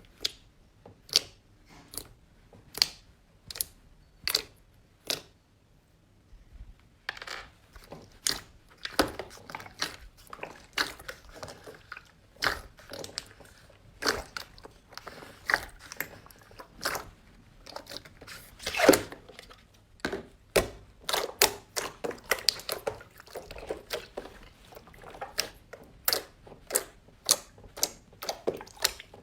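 Slime being pressed and worked by hand, making sharp crunchy clicks about once a second at first. After a short pause it turns to a dense run of crackling and popping.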